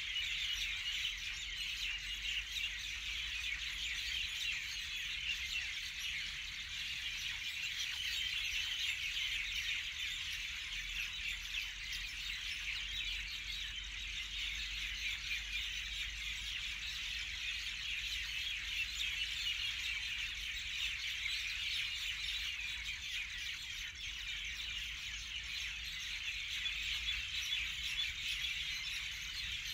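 Rural outdoor ambience: a dense, steady chorus of high-pitched chirping, with a low rumble underneath.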